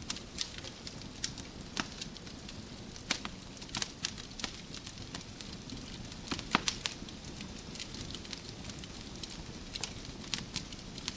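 Wood fire crackling in a fireplace: a steady low rustle of burning logs with frequent sharp pops and snaps, the loudest about six and a half seconds in.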